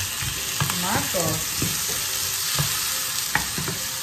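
Chopped onion and tomato sizzling in a hot frying pan while a spoon stirs them, with a steady hiss and several light knocks and scrapes of the spoon against the pan.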